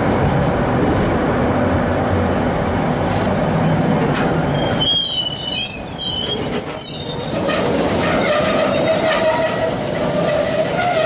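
KiwiRail container freight train rolling past close by, its wagons' wheels rumbling on the rails. From about five seconds in, the wheels give a high, wavering squeal, which settles into a steadier, lower squeal that lasts to the end.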